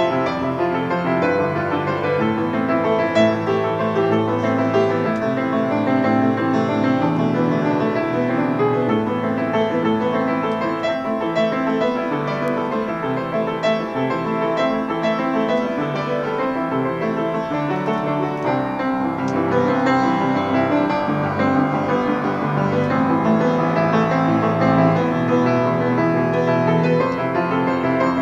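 Solo piano played continuously, a flowing run of notes over sustained chords at an even loudness.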